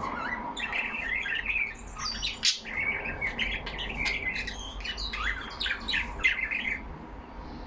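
Several budgerigars chattering together in quick, overlapping chirps, warbles and short squawks; the chatter dies down near the end.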